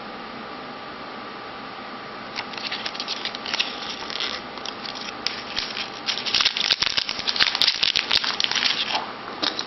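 Small clear plastic candy bag crinkling as it is handled, starting about two seconds in and loudest near the end.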